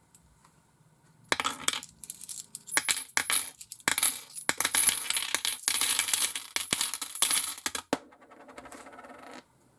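Small hard objects clinking and rattling in irregular bursts for several seconds, with a bright metallic ring, then a faint tone near the end.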